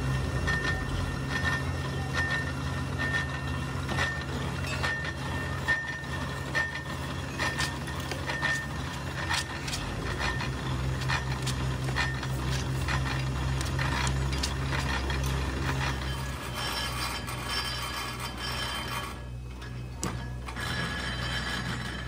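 Belt-driven foundry sand mixer running with a steady low hum and a regular metallic tick about every two thirds of a second, with scattered clinks and knocks from the moulding sand being worked in and out of it. The sound thins out near the end.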